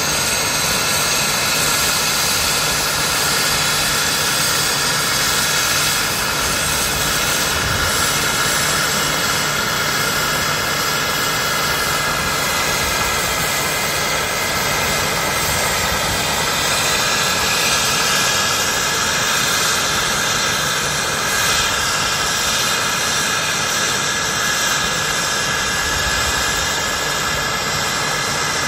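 Radio-controlled scale Alouette II helicopter hovering and flying low: a steady engine whine over the rotor noise, wavering slightly in pitch about two thirds of the way through.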